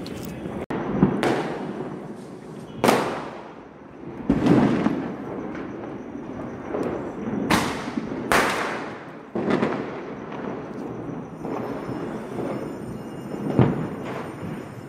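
Firecrackers and fireworks going off, with about seven loud, sharp bangs at irregular intervals, each trailing off in an echo, over a steady background of more distant bangs and crackle.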